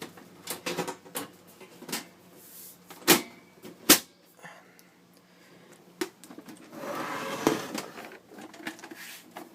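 Clicks and knocks of a desktop computer case being closed up, with two loud knocks about three and four seconds in and a scraping rattle near the end.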